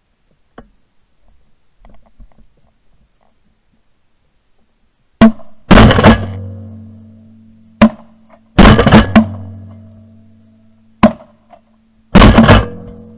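Shotgun shots fired at a flock of passing ducks: six loud cracks, some of them two in quick succession, starting about five seconds in and spread over about seven seconds, each trailing off in a fading echo.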